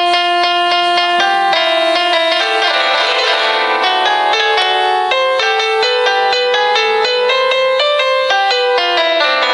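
Instrumental ringtone melody on a piano-like keyboard sound, a fast run of evenly repeated notes.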